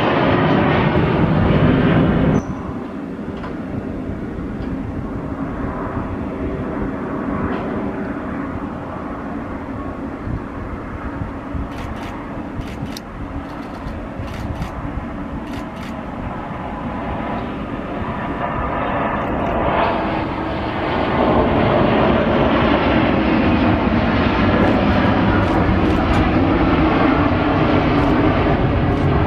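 Business jet engine noise: a Dassault Falcon climbing out after takeoff, then, after a sudden cut, a Bombardier Global 7500 landing and rolling out on the runway, its engine noise growing louder again about twenty seconds in.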